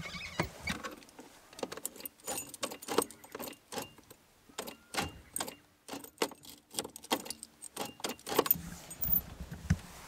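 Keys jangling and an ignition switch clicking irregularly as the key is worked back and forth in a Land Rover Defender's ignition, a switch the owner believes has failed.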